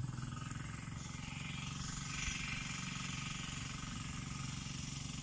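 A steady low hum of a motor running, with a faint hiss that swells about two seconds in.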